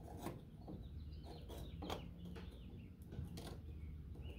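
Light clicks and knocks of a fuel pump and sending unit assembly being handled and fitted into the tank, with faint bird calls in the background, one stretch in the middle and another near the end.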